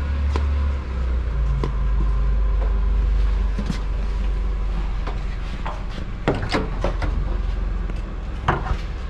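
Several sharp clicks and knocks of tools and parts being handled during an oil change, over a steady low rumble.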